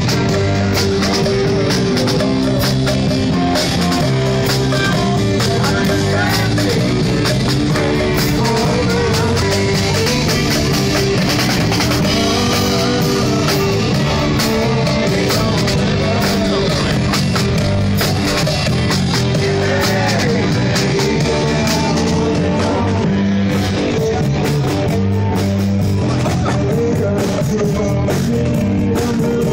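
Rock music with drums, guitar and a singing voice, at a constant loudness.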